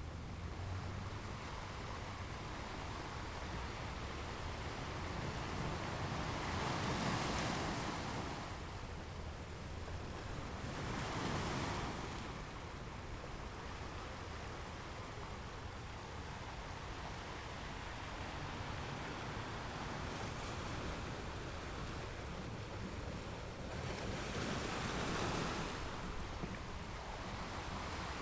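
Sea water rushing and splashing along the hull of a moving boat, a steady wash that swells louder three times.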